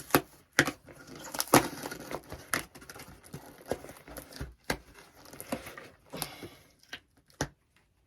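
A freshly cut-open shipping box and its packaging being unpacked by hand: irregular rustling and crinkling broken by sharp clicks and knocks.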